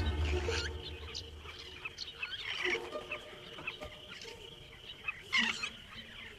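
Wild birds chirping and calling in short, scattered calls, over the tail of fading background music in the first second or so.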